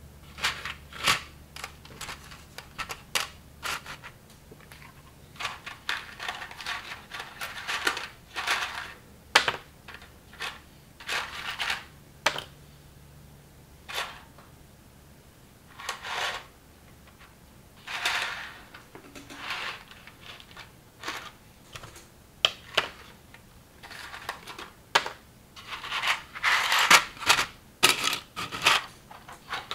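Knockoff LEGO-style plastic building bricks being handled and pressed together: irregular clicks and clacks of hard plastic, with short rustling stretches between them and a busier flurry of clicks near the end.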